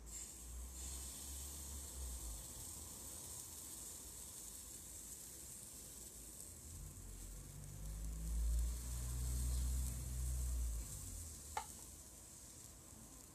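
Cocoa pancake batter sizzling faintly in a hot non-stick frying pan as it is poured in and cooks over low heat. A low rumble comes and goes in the middle, and there is a single click near the end.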